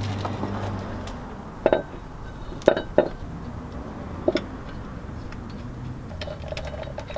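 About four light metal clinks and taps as a flywheel is fitted onto the crankshaft and its bolts are started by hand, over a faint low hum.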